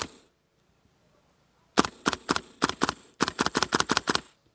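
Airsoft gun firing: a handful of single shots about two seconds in, then a rapid burst of about ten shots. A single sharp click sounds at the very start.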